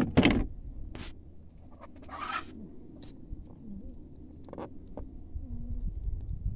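A sharp knock at the start, then soft scrapes, rustles and small taps as a whole plucked Cornish Cross chicken is handled and pressed on a plastic folding table.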